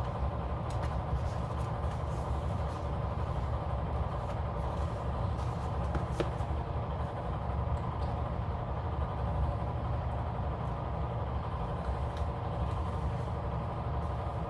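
Steady low droning hum throughout, with a few faint ticks from handling paper or stickers, the clearest about six seconds in.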